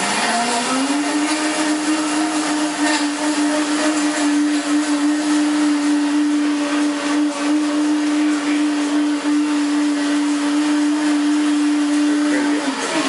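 A small high-speed electric motor spinning up over about a second to a steady hum, running evenly for about twelve seconds, then switching off near the end.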